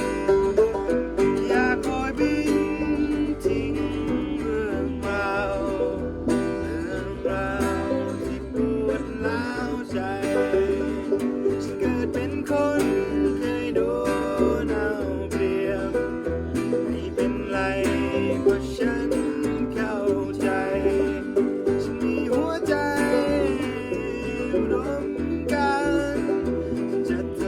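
Folk band playing an instrumental passage, led by quickly picked string instruments over a steady bass line.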